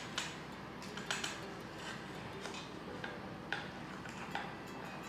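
Charcoal fire in a small twig stove crackling: sharp, irregular pops and snaps about every half second over a low steady background.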